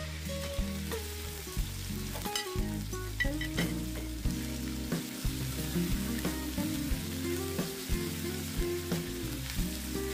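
Chopped pork sizzling in hot oil in a metal wok as it is sautéed with shallots and garlic, a wooden spatula stirring it with frequent short scrapes and knocks against the pan. Background music plays underneath.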